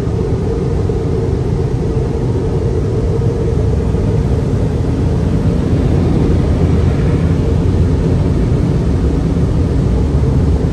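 Car wash drying blowers running, a steady, loud rush of air blasting over the car, heard from inside the car.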